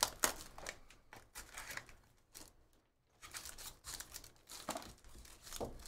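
Cardboard card boxes handled with light clicks and rustles, then a box opened and a foil trading-card pack crinkling as it is pulled out, the crinkling thickening after about three seconds.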